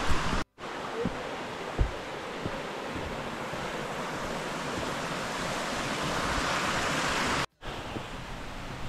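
Steady rushing wind noise on a GoPro's microphone that slowly swells, with a couple of soft thuds. Two brief total dropouts, about half a second in and near the end, break it.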